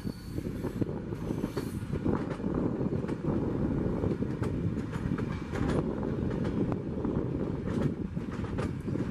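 Passenger train coaches rolling past at close range: a steady rumble of steel wheels on the rails, broken by frequent irregular clicks from the wheels on the track.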